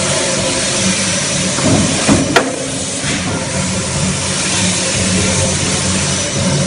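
Steady forge-shop machinery noise during crankshaft forging: a constant hiss over a low mechanical hum, with one sharp metallic bang a little over two seconds in.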